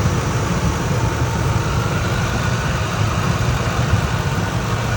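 2003 Ford Expedition's V8 idling steadily while still warming up, running smooth with no miss and no chirp.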